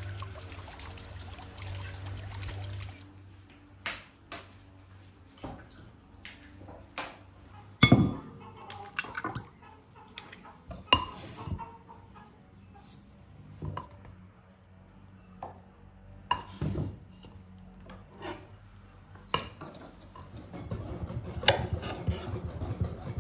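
Kitchen-work sounds: a steady hiss for the first three seconds, then scattered sharp clinks and knocks of a glass bowl, the loudest about eight seconds in. Near the end comes a quick run of taps as a knife cuts strawberries on a wooden chopping board.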